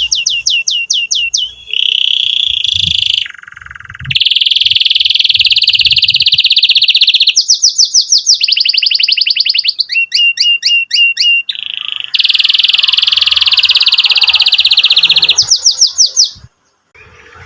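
Domestic canary singing in full song: fast trills of quickly repeated sweeping notes alternating with long, even rolled notes, broken by short pauses. It stops abruptly about a second before the end.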